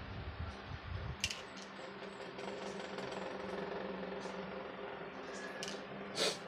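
Steady mechanical hum with a few short, sharp clicks, one about a second in and the loudest just after six seconds in.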